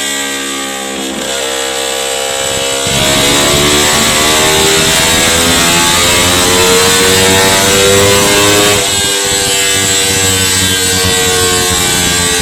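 Yamaha R25 parallel-twin engine, tuned with a standalone ECU, revving up under load with a steadily rising pitch. About nine seconds in, the pitch drops suddenly and starts climbing again.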